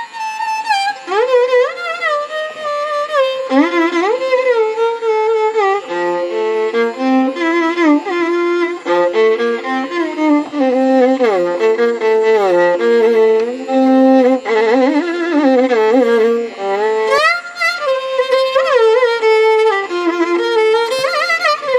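Instrumental background music: a single melody line with many sliding, gliding notes.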